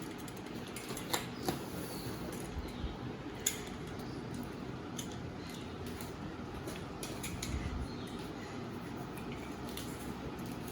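Contents being taken out of a laptop's cardboard box: scattered light clicks, taps and handling noises over a steady background hiss.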